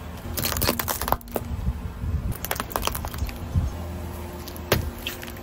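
Car tyre rolling onto small plastic containers and crushing them: a quick cluster of sharp cracks and crunches in the first second, more crackling around the middle, and a single sharp snap near the end, over a low rumble.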